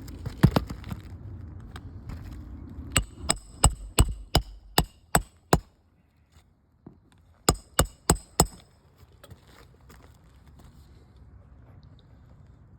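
Hammer driving roofing nails into asphalt shingles: a couple of blows, then a steady run of about eight strikes, a pause, and about four more.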